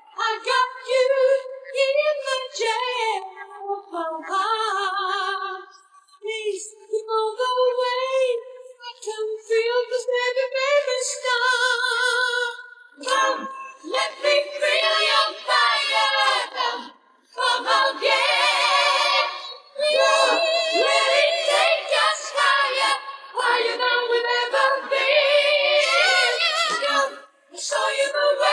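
Vocals separated from their backing music, with no instruments: long held sung notes with vibrato, then from about 13 seconds in a fuller stretch of several voices singing together in quicker phrases.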